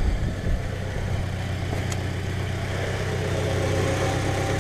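2008 Subaru Outback's boxer engine idling steadily with fresh oil and a new filter, an even low pulsing hum, with one faint click about two seconds in.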